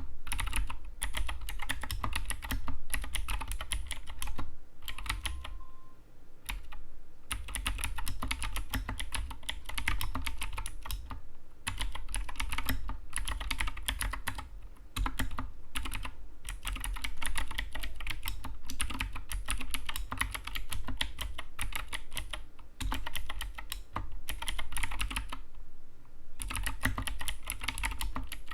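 Anne Pro 2 60% mechanical keyboard being typed on: fast, continuous runs of key clicks and clacks, broken by a few brief pauses.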